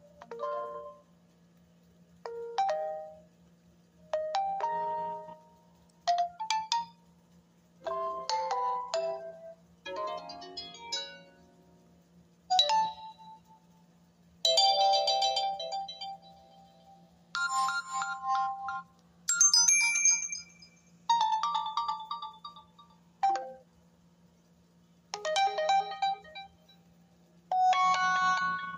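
Oppo A7 smartphone playing its built-in ringtones and notification tones one after another through its speaker: more than a dozen short electronic melodies and chimes, each lasting a second or two, separated by brief pauses.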